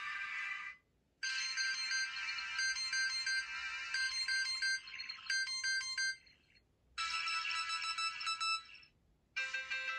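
Sony Ericsson W890i's loudspeaker playing T-Mobile's preset polyphonic tones one after another, with short silences between them. The startup chime ends almost at once. The alarm tone follows, about five seconds of repeated high electronic notes, then the short message tone, and the ringtone starts near the end.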